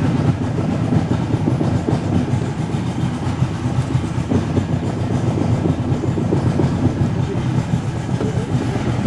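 A boat's engine running steadily under way, a low, even drone.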